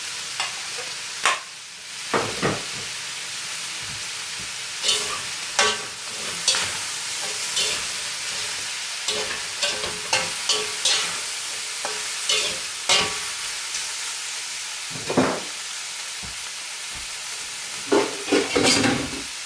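Stir fry of chicken, fish tofu and freshly added chopped carrots sizzling in a pan, with a steady hiss. A cooking utensil stirs it, scraping and knocking against the pan at irregular moments, with a busier flurry near the end.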